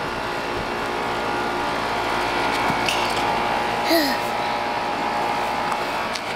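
Steady mechanical hum with several constant tones in it. About four seconds in, a toddler gives a short vocal sound that falls in pitch.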